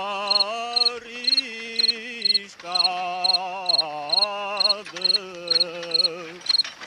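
A man singing slowly, holding long wavering notes with vibrato, while a cricket chirps steadily about twice a second.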